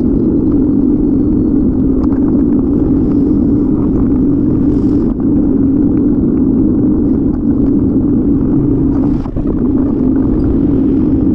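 Steady wind and road rumble on a bicycle-mounted camera's microphone while riding, sped up in a timelapse.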